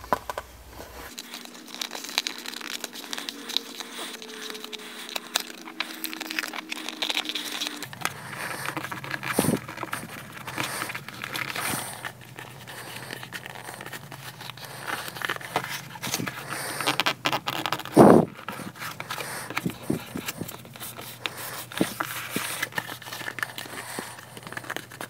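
Leather being rubbed, folded and pressed down over a kydex holster shell by hand: irregular crinkling and scraping with small clicks, and a sharp knock about 18 seconds in.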